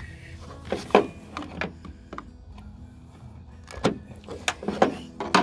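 Irregular knocks and clicks of hand work on a vehicle turn-signal lamp: the old lamp and tools being handled during removal, loudest about a second in and near the end. A steady low hum runs underneath.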